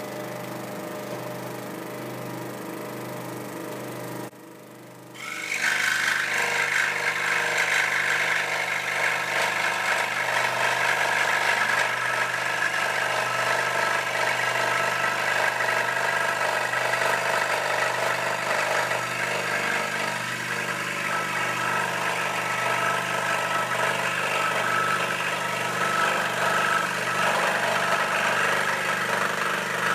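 Record Power SS16V variable-speed scroll saw running with a steady hum, then from about five seconds in cutting a straight line through pine, which adds a louder, higher sawing noise that carries on steadily.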